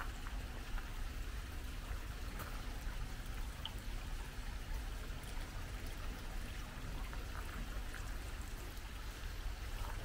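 Steady trickle of water pouring and splashing into a goldfish pond, with a low rumble underneath.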